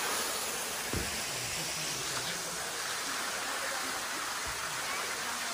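Steady rushing of a jungle waterfall, with a couple of faint low bumps from the phone being handled.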